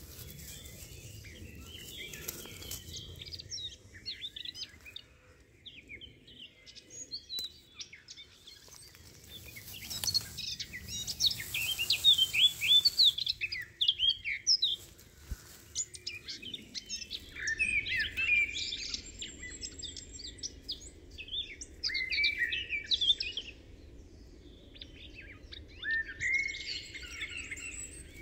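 Wild songbirds chirping and singing in repeated bursts of quick, high notes, with short gaps between the bursts.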